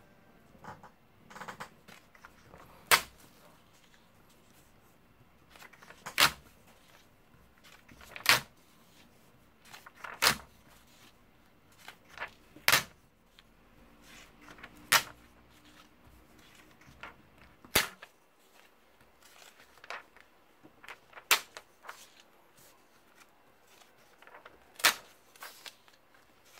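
Sharp snaps and slaps of paper sheets being handled on a wooden desk, one loud crack every two to three seconds with softer rustles between.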